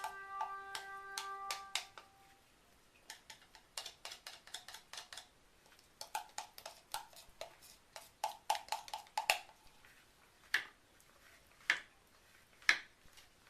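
Background music with held notes ending about two seconds in, then a run of light clicks and taps of a utensil against a container as soap batter is worked.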